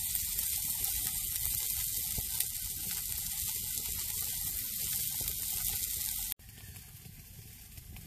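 Food sizzling in a pan over an open fire, a steady hiss that cuts off suddenly about six seconds in, leaving a much quieter background.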